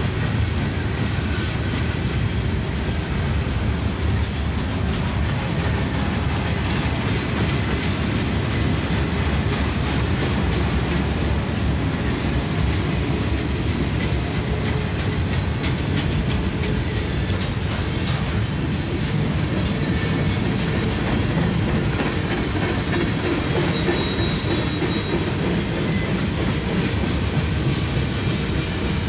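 Freight train cars rolling steadily past: a continuous, even rumble of steel wheels on the rails that does not let up.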